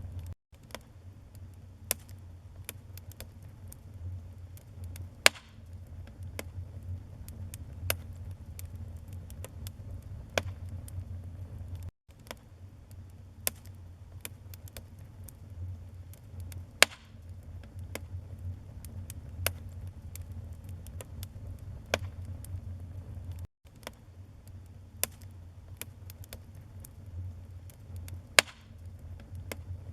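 Wood fire burning in a fireplace: irregular crackles and sharp pops, a few much louder than the rest, over a low steady rumble. The sound cuts out for a split second three times, about every eleven seconds.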